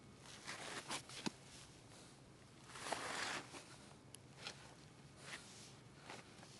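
Faint, irregular scuffs and crunches of a red Shiba Inu puppy's paws on gravel as it walks and noses along the ground, with a longer, louder scuff about three seconds in.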